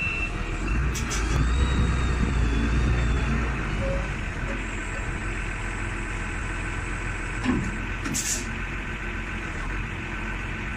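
Cat DP150 diesel forklift engine running steadily, louder for a couple of seconds about a second in. There are a few sharp clicks and knocks over the top.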